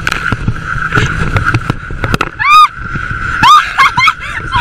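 Nautique tow boat's engine running under the rush of its wake, with short high-pitched screams breaking in, one about halfway through and several quick ones near the end.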